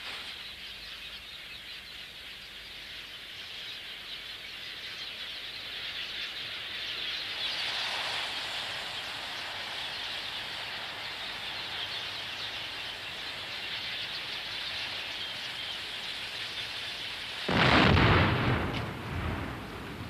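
Dense, steady chatter of a large roost of red-billed quelea in the trees. About seventeen seconds in, a firebomb of gelignite under a drum of petrol and diesel explodes with a sudden loud blast lasting a couple of seconds.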